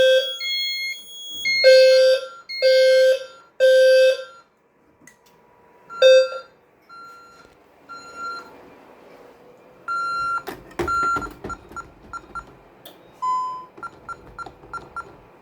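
Fire alarm horns sounding in the three-pulse temporal pattern, then cutting off after one last pulse. Short electronic beeps and a few clicks follow in the second half.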